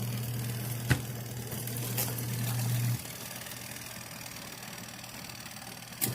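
A small electric motor humming steadily, cutting off abruptly about three seconds in, with sharp clicks about one and two seconds in and again near the end.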